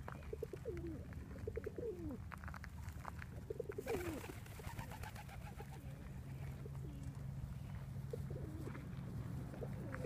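Feral rock pigeons cooing: short low coos that fall in pitch, repeated several times, clearest in the first half and fainter later. Scattered light clicks and a steady low rumble sit underneath.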